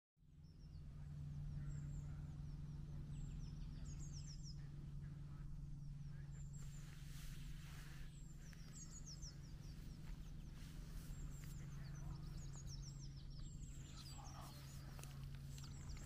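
Small songbirds calling: many short, high chirps and twitters scattered throughout, over a steady low hum.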